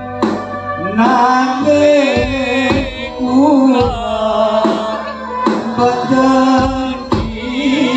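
A voice singing a long, wavering melodic line over a Javanese gamelan ensemble, with drum strokes falling about once a second.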